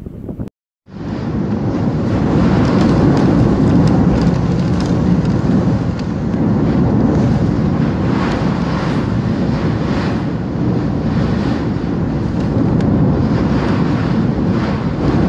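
Hurricane-force wind and driving rain against a window: a loud, steady, rushing din that starts suddenly about a second in.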